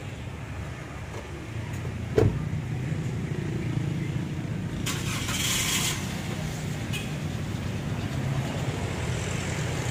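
A motor vehicle's engine running at a steady low idle. A single sharp knock sounds about two seconds in, the loudest thing heard, and a brief hiss comes about five seconds in.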